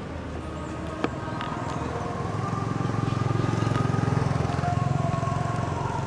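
A passing motor vehicle's engine: a low rumble that swells to its loudest about three to five seconds in, then eases off. A single sharp click sounds about a second in.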